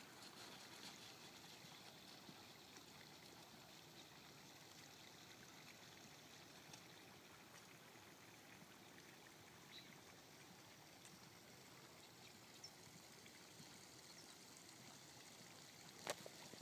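Near silence: a faint, steady outdoor hiss with a few faint ticks and a short sharp click near the end.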